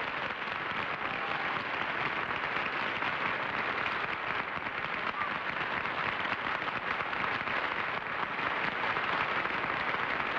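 Large studio audience applauding, a steady, dense clapping that doesn't let up.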